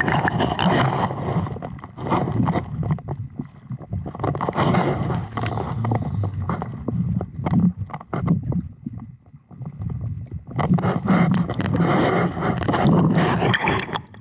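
Lake water splashing and sloshing around a swimmer as he strokes through it. It comes in three stretches of a few seconds with short lulls between.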